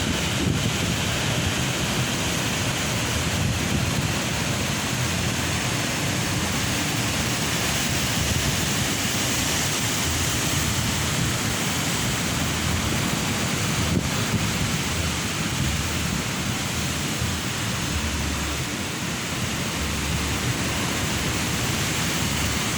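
Ocean surf rushing steadily onto the beach, with wind buffeting the microphone.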